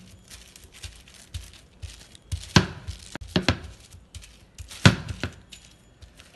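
A wooden press pushed and tapped down on cashew fudge dough under a plastic sheet: a series of soft knocks, the loudest three a second or so apart in the middle and near the end, with plastic crinkling between them.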